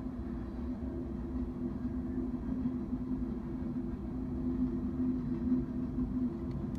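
BNSF manifest freight train rolling past: a steady low rumble with a steady droning hum.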